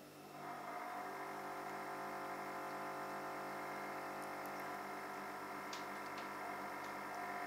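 A steady, faint machine hum made of several even tones, starting a moment in.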